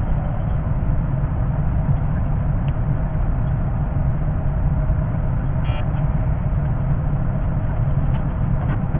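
Running noise of a 381-series limited express electric train, a steady low rumble of wheels and motors, with a brief pitched tone about six seconds in.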